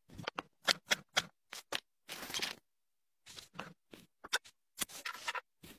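A string of short, sharp clicks and scrapes, with dead-quiet gaps between, as a hand rolls a portable Bluetooth speaker over a table and sets it upright.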